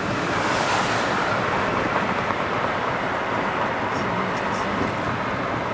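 Car driving, heard from inside the cabin: steady tyre and road noise with a few faint ticks about four seconds in.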